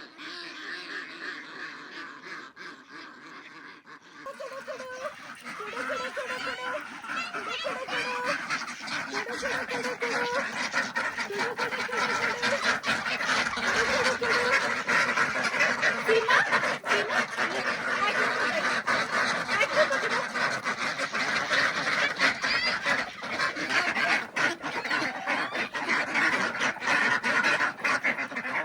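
A flock of Campbell ducks quacking continuously, many birds calling over one another, growing louder about four seconds in.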